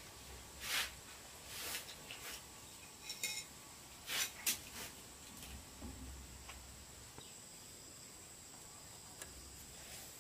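Faint, scattered clicks and scrapes of marking out timber by hand: a steel tape measure being handled and a pencil drawn across the wooden board. Most of them come in the first half, with only a thin steady high tone after.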